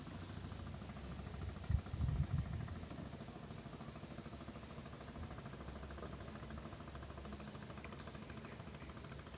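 Quiet outdoor ambience with scattered short, high-pitched chirps and a few low thumps about two seconds in.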